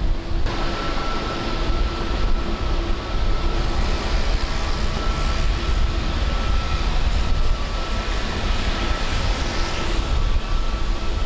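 Steady airport ramp noise: a continuous whine of aircraft engines over a low, gusty wind rumble on the microphone, with the whine coming in about half a second in.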